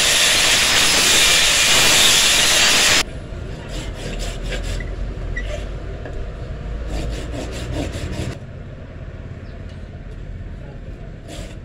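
Handheld angle grinder cutting into the steel of an old saw blade, giving a loud, steady hiss that cuts off abruptly about 3 seconds in. Quieter, scattered scraping strokes follow.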